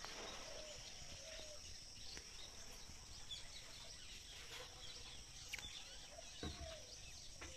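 Faint rural ambience: a steady high-pitched insect drone with scattered bird chirps.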